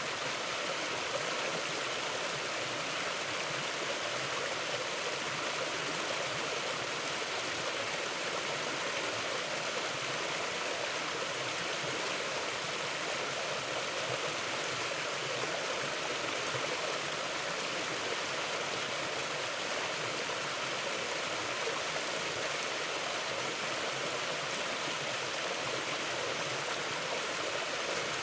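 Mountain river flowing steadily, an even rush of water running over rocks.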